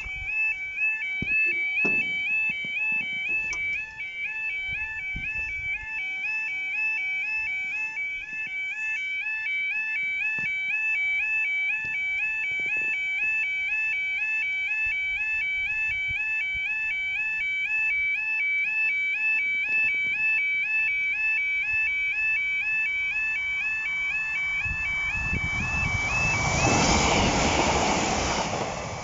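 Level crossing yodel alarm warbling steadily between two alternating tones. Near the end it is swamped by a rising rush of noise as a Class 156 diesel multiple unit passes over the crossing.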